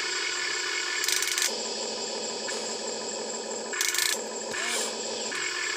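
The small electric motors of a Huina 1592 RC excavator whirring in short runs as its arm and bucket are worked, the pitch changing as one control is stopped and another started. Twice, about a second in and again about four seconds in, there is a brief harsh rasp.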